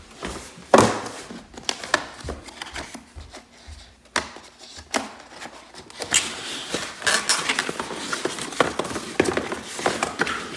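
Handling noise from unpacking small plastic parts: scattered taps and knocks, a sharp knock under a second in, then a denser run of crinkling and rustling from about halfway through.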